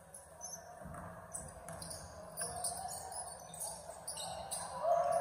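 Basketball game play on a hardwood gym floor: sneakers squeaking in short chirps and a basketball bouncing, with a low thump about a second in and faint voices echoing in the hall.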